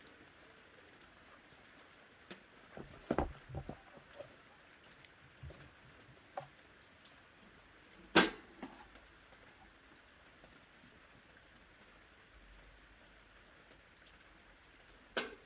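Scattered light knocks and clicks over a faint steady hiss: a few around three seconds in, the loudest about eight seconds in, and one more near the end.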